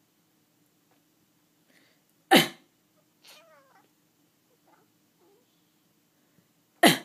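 A person coughs sharply twice, about two and a half seconds in and again near the end. Just after the first cough, a domestic cat answers with a faint, short meow that bends in pitch.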